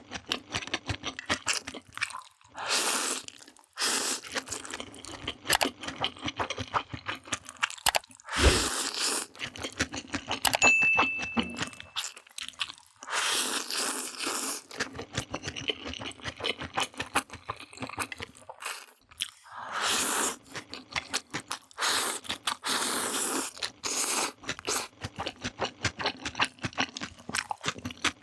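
A person chewing and biting crunchy food, in dense rapid crackling crunches, with louder noisy stretches of a second or two every few seconds.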